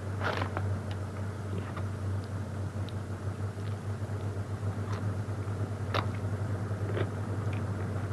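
Steady low drone of a moving car, heard from inside the cabin, with a few faint short clicks and crunches as a hot chili pepper is bitten and chewed.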